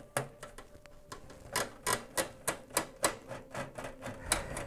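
A quick, irregular run of sharp metallic clicks and taps from a screwdriver working motherboard screws and parts knocking inside a steel computer case, as the motherboard is freed.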